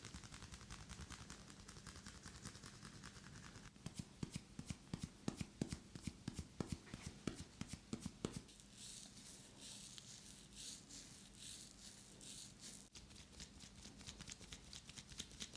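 Hands massaging skin and hair: quick rubbing strokes, then a run of sharper pats from about four seconds in, then slower rhythmic rubbing strokes, about two a second, turning quicker again near the end. A faint steady hum sits underneath.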